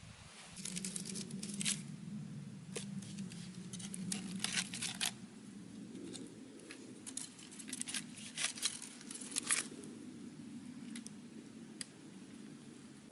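Close-up food preparation: a hand laying a tomato slice into a clay pot, then a knife cutting slices off a soft yellow block and dropping them onto the filling. It is heard as clusters of sharp, crackly scrapes and taps about a second in, around four to five seconds in, and from about seven to ten seconds in, over a faint steady low hum.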